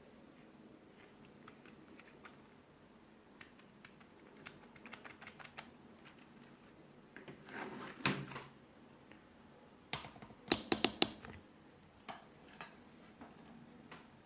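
Keys of a wireless ABNT2 office keyboard being typed on: scattered faint keystrokes, a louder cluster around the middle, then a quick run of sharp key clicks, the loudest, about two-thirds of the way through.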